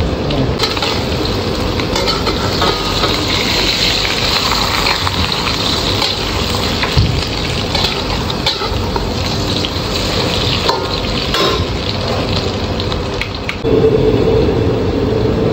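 Thai omelette deep-frying in hot oil in a stainless steel wok, a steady sizzle with a few short taps from a metal spatula. Near the end the sound gets louder and a steady hum joins in.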